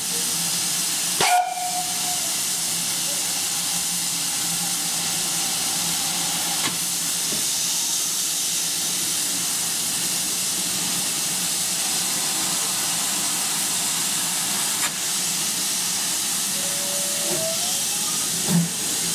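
Steady loud hiss of steam escaping around the cylinders of BR Western Region 0-6-0 pannier tank No. 1501, with a sharp clank about a second in.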